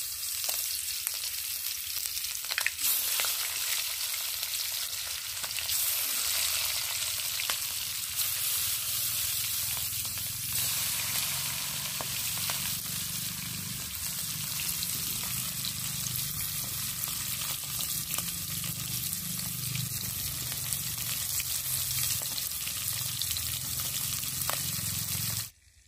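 Hilsa fish pieces sizzling steadily as they are lightly fried in hot mustard oil in a kadai, with a few sharp pops. The sizzle cuts off abruptly near the end.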